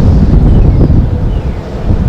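Wind buffeting the microphone: a loud, gusty low rumble that rises and falls.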